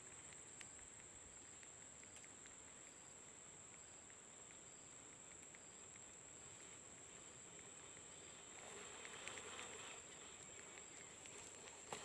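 Near silence: a faint, steady high-pitched insect drone with faint regular chirps, and a brief soft rustle about nine seconds in.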